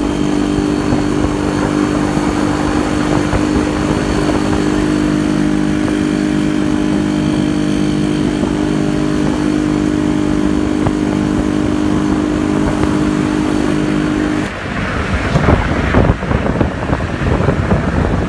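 Two-stroke Yezdi motorcycle engine running at a steady pitch, cruising at constant speed. About fourteen seconds in the steady note drops away and gusty rushing noise takes over, wind buffeting the microphone.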